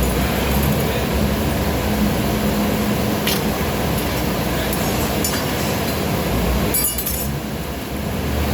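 Steady mechanical drone with a low hum, broken by a few light metallic clinks, the loudest a quick run of clinks about seven seconds in.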